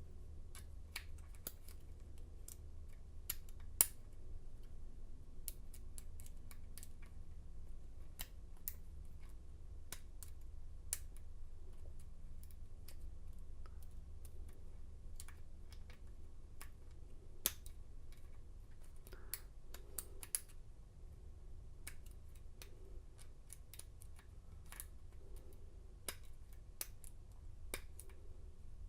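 Small metallic clicks and scrapes of a lock pick and tension wrench working the pins of a Master Lock No. 430's 4-pin cylinder, coming irregularly, with a steady low hum underneath.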